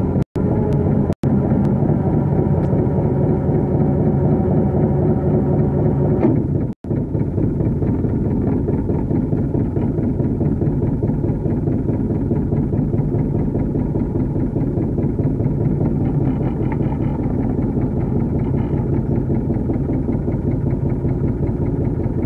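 Motor yacht's engine running steadily while under way: a continuous low engine hum. The audio cuts out briefly three times in the first seven seconds, and the engine note shifts slightly about six seconds in.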